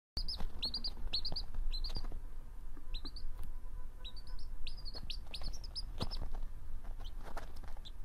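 Baby chicken peeping: short high-pitched peeps, often in quick runs of two or three, over a low steady hum.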